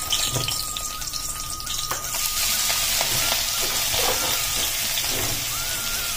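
Hot oil with garlic cloves sizzling in a kadai, with a few light clicks of a slotted spoon. About two seconds in the hiss grows louder and fuller as chopped fenugreek (methi) leaves go into the hot oil.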